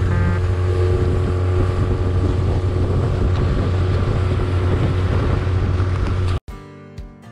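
Mercury outboard motor on a 1966 Super Skeeter bass boat running steadily at speed, with a strong low hum, wind buffeting the microphone and water rushing past the hull. Near the end it cuts off abruptly into plucked guitar music.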